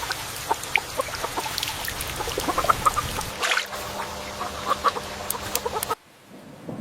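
Rain pattering in dense small drops, with short bird calls scattered through it. The sound cuts out abruptly about six seconds in.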